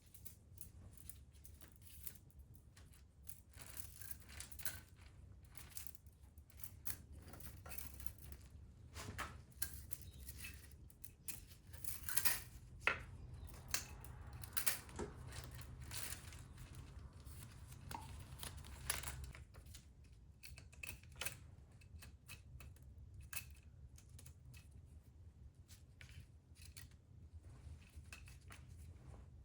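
Faint, scattered clicks and light handling noises, with a few sharper clicks in the middle, over a low steady hum.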